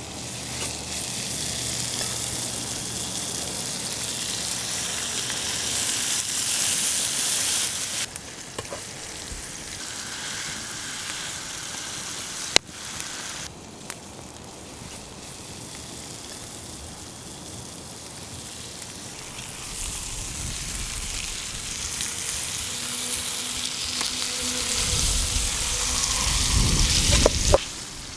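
Food sizzling over a campfire in a steady hiss that stops suddenly about eight seconds in, with a single sharp click a few seconds later. The sizzle builds again in the second half to its loudest near the end, with a low rumble under it, then cuts off abruptly.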